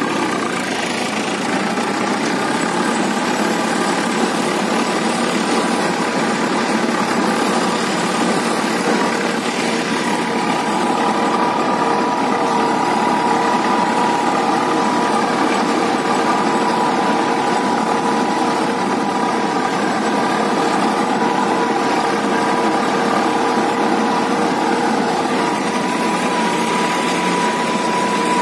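Swaraj 855 tractor's turbocharged three-cylinder diesel engine running steadily under load while pulling a harrow, with a steady high tone over the engine noise.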